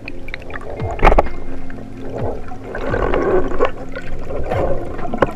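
Background music with held notes and sharp percussive hits, the loudest hit about a second in.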